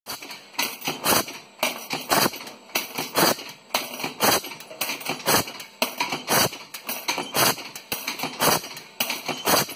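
Press working a cutting die in a steady cycle, about one stroke a second: each stroke a sharp metallic clack, with a lighter click just before it.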